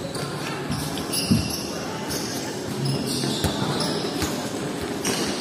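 Futsal ball being kicked and bouncing during play, a few separate knocks with the loudest about a second in, over background shouts from players.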